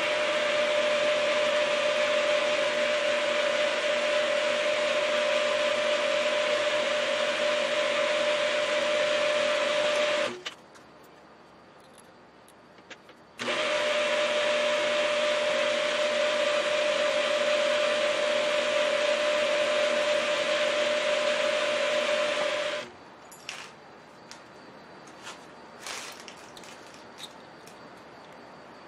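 Small milling machine's spindle motor running with a steady whine while drilling a bar held in the vise. It stops about ten seconds in, starts again about three seconds later, runs for about nine seconds more and stops, followed by a few light clicks.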